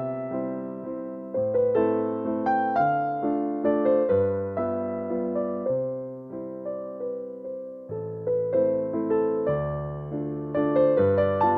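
Background music: a gentle electric piano melody over chords, notes struck and fading.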